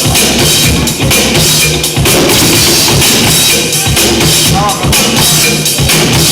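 Loud music with a steady drum-kit beat and a repeating bass line, played for the dancers.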